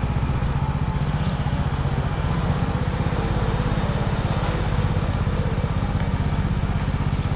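Motorcycle engine running steadily at an even pace while being ridden.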